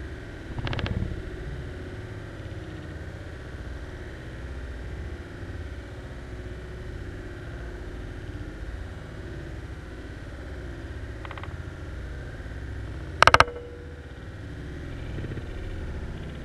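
Steady low rumbling noise, with a soft bump about a second in and one short, sharp click with a brief ringing tone after it near the end.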